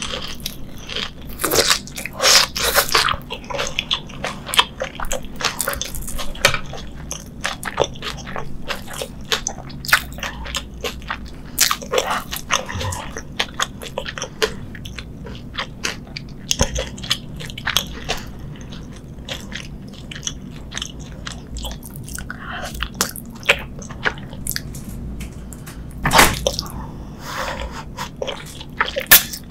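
Close-miked biting and chewing of a Korean corn dog with a crust of fried potato cubes and a stretchy mozzarella filling: crisp crunches mixed with wet chewing, with louder bursts of crunching about two seconds in and again near the end.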